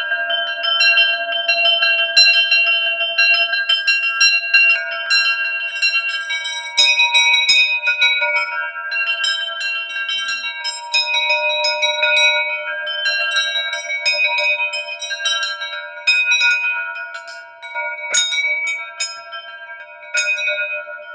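Metal bells or chimes struck again and again, their ringing tones overlapping and sustaining at a few fixed pitches; it grows quieter near the end.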